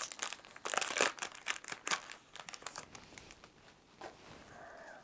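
Yu-Gi-Oh booster pack's foil wrapper crinkling and tearing as it is opened, densest in the first two seconds, then a few lighter rustles and clicks.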